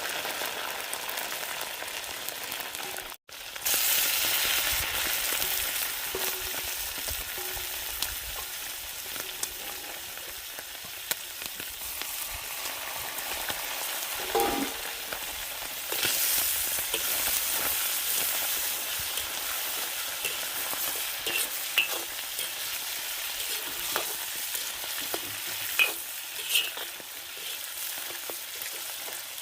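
Food frying in hot oil with a steady sizzle. A utensil stirs it, with a few short knocks and scrapes against the pan. The sound cuts out for a moment about three seconds in.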